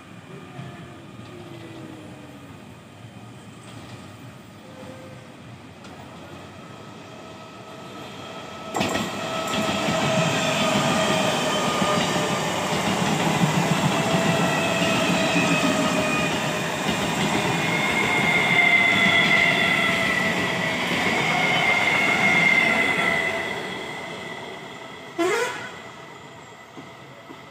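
Electric multiple-unit suburban local train passing at speed: a growing rumble, then about fifteen seconds of loud wheel-and-rail noise with a slowly falling motor whine, fading as the train goes by. Near the end, a brief sharp horn toot.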